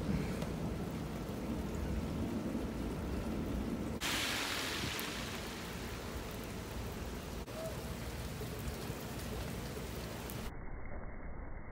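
Thunder rumbling low through the first few seconds, over a steady hiss of falling rain.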